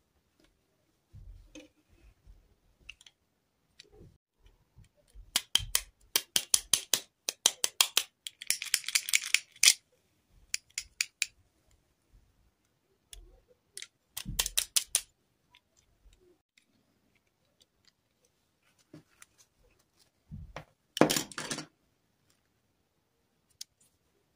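Hands handling plastic dolls and their snap-on plastic dresses: scattered clicks and taps, with runs of quick plastic clicking and rustling, densest a quarter of the way in and again near the end.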